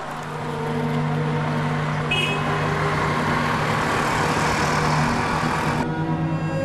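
Town street traffic noise with a low, steady hum under it and a short high beep about two seconds in. The street noise cuts off abruptly near the end, leaving the low hum.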